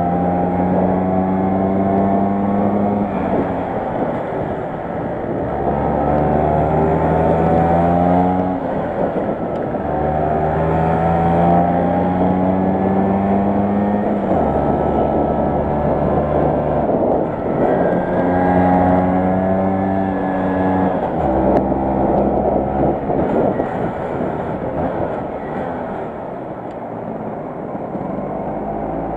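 Vespa 125 Super's two-stroke single-cylinder engine, heard from on board the moving scooter: its note climbs steadily in pitch, drops back and climbs again, over and over. Towards the end it falls off to a low rumble for several seconds, then starts climbing again.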